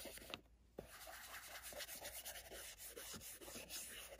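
A short brush scrubbing and dabbing weathering powder into a paper model roof: faint, quick rubbing strokes, with a brief pause about half a second in.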